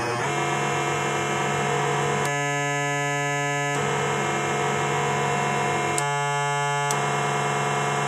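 Rob Hordijk Rungler synthesizer module sounding from its pulsed output at audio rate: a dense electronic tone on a steady low pitch with a grainy, shifting texture. Twice it switches abruptly to a cleaner, more even pattern and back, with a sharp click at the switches.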